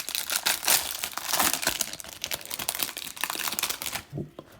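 Crinkling and tearing of the wrapping as a Mosaic football card hanger box is torn open: a dense run of sharp crackles that stops about four seconds in.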